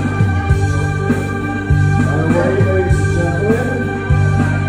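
Live electronic keyboard music: held bass notes and chords over a drum beat, with a lead melody that slides in pitch through the middle.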